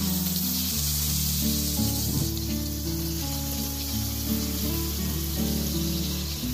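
Background music with held notes that change in steps, over a faint steady hiss of oil sizzling as stuffed snake gourd pieces are set into a hot kadai.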